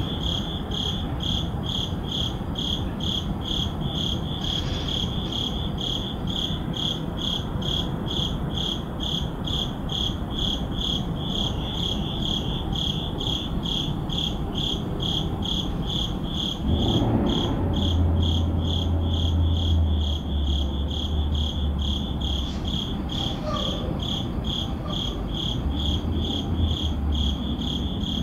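Crickets chirping at night in a steady, even rhythm of high chirps. About two-thirds of the way through, a low rumble comes in under them and stays, with a brief lull.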